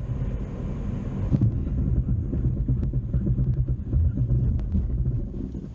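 Car driving at about 40 km/h on a wet low-grip practice surface: a steady low rumble of engine and tyre noise that falls away near the end as the car brakes hard.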